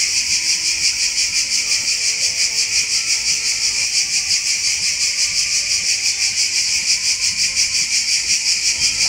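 Cicadas singing in a loud, shrill, steady chorus with a fast, even pulse.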